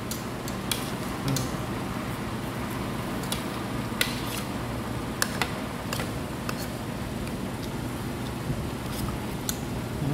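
Metal spoon and fork clicking and scraping against a plastic plate while eating, a sharp tap every second or so, over a steady hum of restaurant ventilation.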